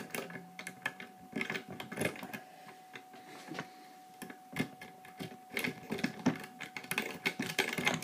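A steel rake pick scraping in and out of a Security Solutions 5-pin tumbler cylinder lock, setting off quick, irregular runs of small metallic clicks from the pins, with a sparser pause about three seconds in before the raking picks up again.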